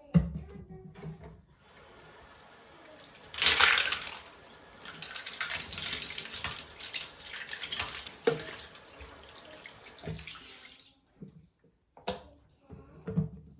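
Water running from a tap into a sink, with a harder gush about three and a half seconds in. The water cuts off near the end. A few knocks come before the water, during it and after it stops.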